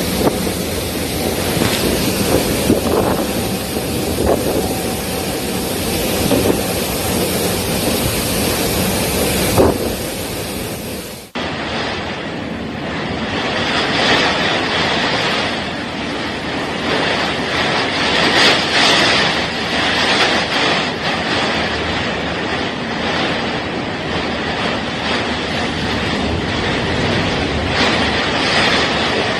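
Typhoon storm noise: strong wind rushing steadily with no letup. About eleven seconds in, the sound cuts abruptly to a second stretch of similar storm noise that is higher and hissier.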